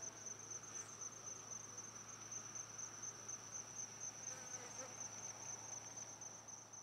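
Crickets chirring: one faint, steady, high-pitched trill.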